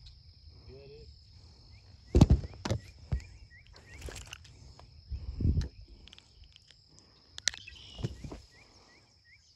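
Knocks and rustles from the camera being handled and footsteps through tall grass, loudest about two seconds in and again near the middle and end, over a steady high insect buzz. Two quick runs of short high chirps come through, one early and one near the end.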